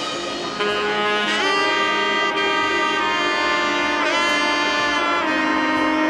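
Music with a lead instrument holding long notes, sliding in pitch about a second and a half in and again about four seconds in.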